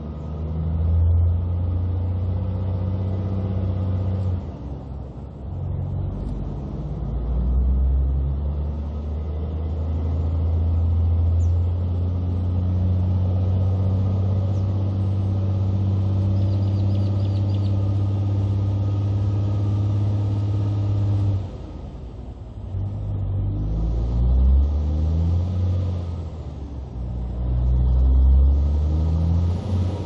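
Kenworth C509 prime mover's diesel engine pulling away under a heavy oversize load. A deep, steady engine note is broken by short dips about a sixth of the way in and again about two-thirds through, where it changes gear, and it rises again after each.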